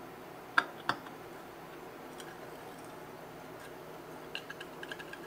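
Small metal water pressure gauge being handled and turned over on a wooden workbench: two sharp clicks a fraction of a second apart about half a second in, then a run of faint light ticks near the end.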